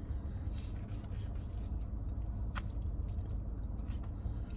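Close-up eating sounds: chewing and wet squishing of sauce-covered chicken, with a sharp click about two and a half seconds in, over a steady low rumble.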